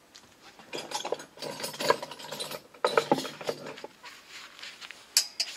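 Hand tools being handled: a run of metallic clinks and rattles, with a sharp click near the end.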